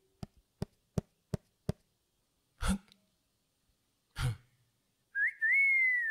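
Sound effects of an animated logo intro: five quick ticks, about three a second, then two heavier hits with a deep low end. Near the end a short whistle rises and then glides down.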